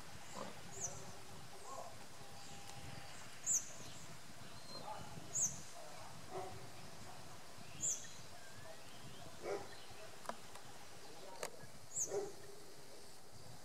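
A bird repeats a short, high, falling call about every two seconds over a steady outdoor hiss, with fainter short low sounds in between.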